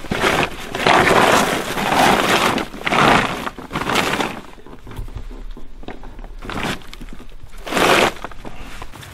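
Plastic tarp crinkling and rustling as it is pulled open by hand, in several bursts over the first few seconds and twice more near the end.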